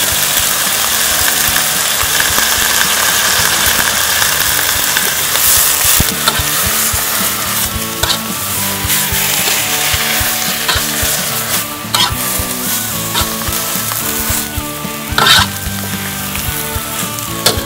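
Mixed vegetables sizzling loudly in hot oil in a wok as they are stir-fried with oyster sauce and light soy sauce. A spatula scrapes and knocks against the wok a few times in the second half, over soft background music.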